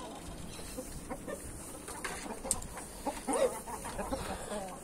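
Game chickens clucking: a few short, soft clucks, most of them in the middle.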